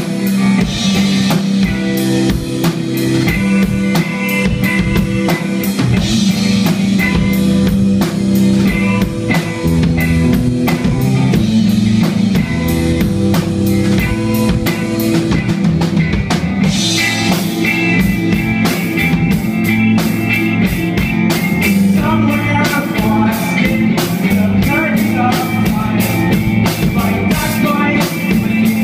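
Live rock band playing loud, electric guitars over a drum kit keeping a steady beat on bass drum and snare.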